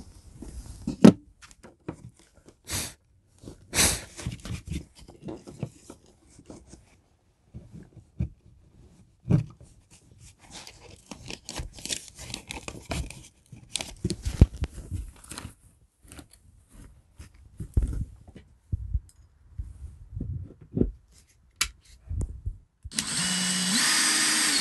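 Scattered clicks, scrapes and rustles of Ethernet cable being worked up through a small hole in ceiling drywall with pliers. Near the end a cordless drill runs for about two seconds, boring into a plywood floor, its pitch rising as it spins up.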